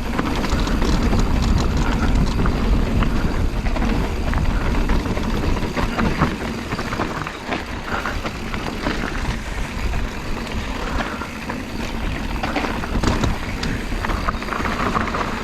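Pivot Switchblade 29er mountain bike descending a trail at speed: a steady rush of wind and tyre rumble, with frequent clicks and rattles from the bike over bumps.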